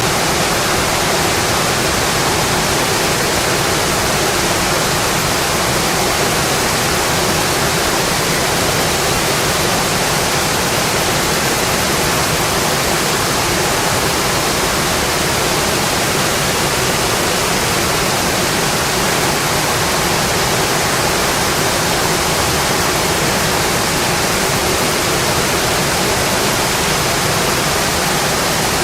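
Steady rainfall: an even, unbroken rush of rain noise, without separate drops standing out.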